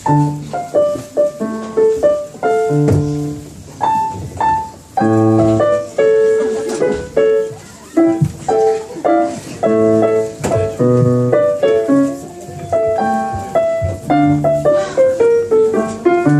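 Piano playing a melody over chords, with separate struck notes that fade.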